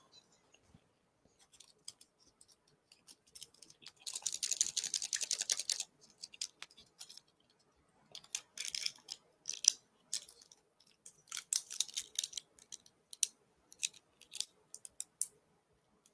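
Communion bread being crunched and chewed close to the microphone, in irregular bursts with pauses between them, the longest about four seconds in.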